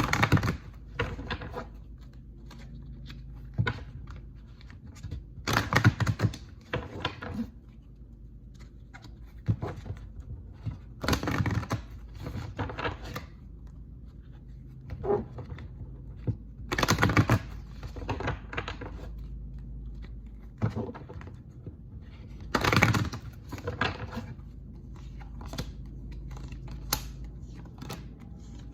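Tarot cards being shuffled and handled: bursts of rapid clicking riffles every few seconds, with scattered single taps and rustles between them over a low steady hum.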